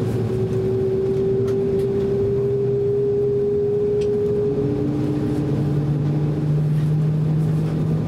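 Steady drone inside the cabin of an Embraer E190 jet airliner during pushback. A humming whine slowly rises in pitch over the first few seconds, and a lower hum comes in and climbs gently about five seconds in.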